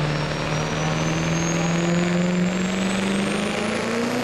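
Pro street diesel pickup engine under full load pulling a weight-transfer sled. Its note rises slowly in pitch through the pull, and a high whistle climbs steadily above it.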